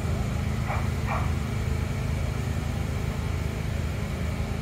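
A dog barks twice, about half a second apart, near the start, over a steady low rumble.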